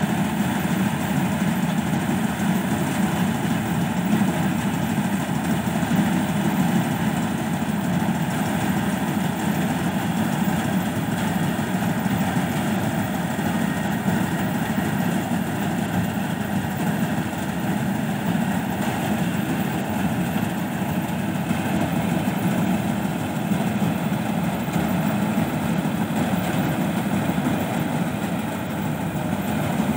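Combine harvester running steadily while cutting paddy: a continuous low engine drone that does not change.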